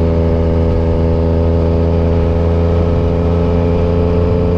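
Triumph Street Triple 765 RS inline three-cylinder engine running through an unbaffled SC Project full exhaust, held at steady revs with the pitch creeping up slightly near the end.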